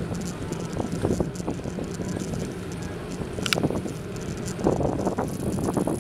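Wind rushing over the microphone and the tyre noise of a bicycle rolling along a paved road, with scattered small clicks and rattles and one sharp click about three and a half seconds in.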